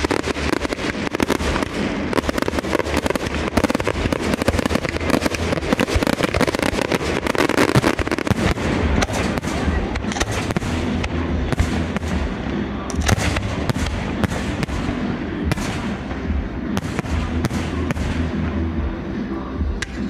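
Fireworks display: a dense, continuous crackle and popping of aerial shells and crackling stars bursting one after another. In the last few seconds it thins into more separate sharp cracks.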